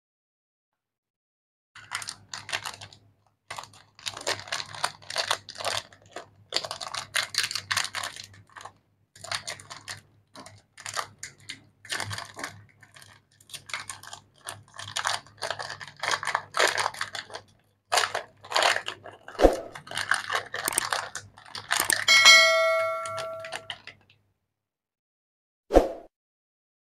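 Plastic chocolate-bar wrapper crinkling and tearing in irregular bursts as fingers peel it open, over a faint low hum. Near the end a short bell-like chime rings, followed a couple of seconds later by a single sharp tap.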